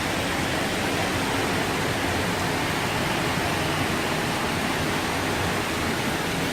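Steady, even rushing of water, with no change in level.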